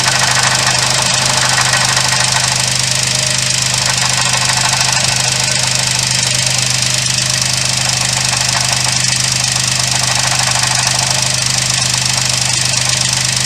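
Suzuki Jimny JB64's 660 cc three-cylinder turbo engine running steadily, with the noise of its alternator, whose bearing is worn and is the cause of the abnormal sound.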